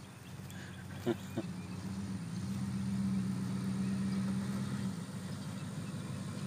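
1968 Ford pickup engine running at low speed as the truck rolls across the field, a steady low hum that swells for a couple of seconds midway and then eases. Two short sharp sounds come about a second in.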